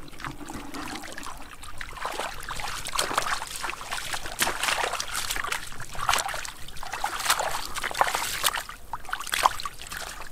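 Hands sloshing and splashing in shallow muddy water, groping through the mud with many small irregular splashes and trickles.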